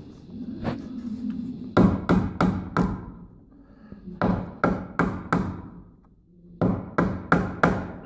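Claw hammer driving cable staples into a wooden stud to fasten Romex cable, in three quick runs of about five blows each, about four blows a second.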